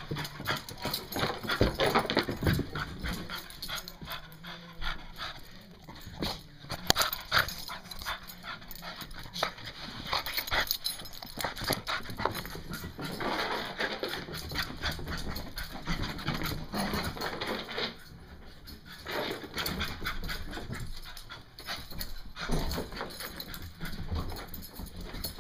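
An excited beagle tearing around the house, making dog sounds amid a run of irregular knocks, thumps and scuffles from its scrambling paws and rough play.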